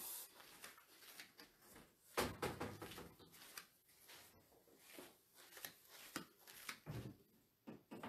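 Faint knocks, scrapes and rustling of large whiteboards being lifted off a stand and another set in its place, with a louder thump about two seconds in.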